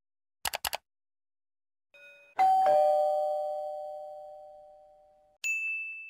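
Computer mouse clicking three times in quick succession. Then a ding-dong chime, a higher note followed by a lower one, rings out and fades over a few seconds. A single high ding sounds near the end.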